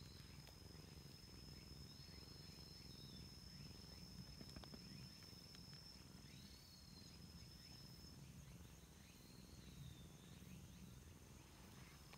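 Near silence: faint outdoor ambience with an insect's steady high trill, which breaks off about two-thirds of the way through, and a few short high chirps every few seconds.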